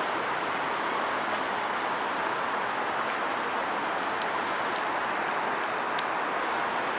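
Steady city street traffic noise, an even hiss with a few faint ticks and no change in level.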